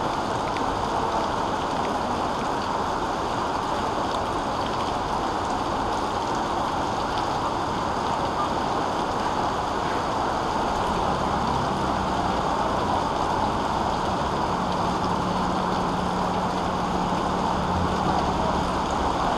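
Steady rush of heavy rain and running floodwater on a city street. About halfway through, a vehicle's low engine hum joins it.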